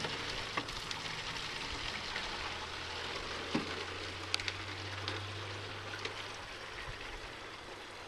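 Water from a garden hose turned up to full flow running into a plastic gallon jug: a steady rushing, splashing hiss that grows slightly quieter toward the end, with a few light knocks.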